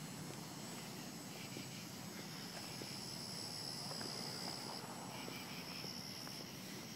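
Insects calling: a steady high-pitched trill that grows stronger through the middle, with short pulsed chirps about a second in and again near the end. A few faint ticks, likely footsteps on pavement, are also there.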